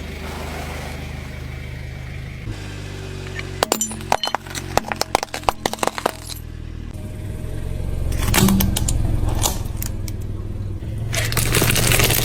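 Car running with a low steady hum as its tyre rolls over crunchy toys: a quick run of sharp cracks and snaps about four seconds in, then louder rough crunching and rumbling in the second half.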